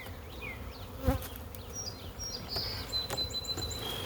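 Swarm of honey bees buzzing steadily as they are dumped into a hive, with a single sharp knock about a second in.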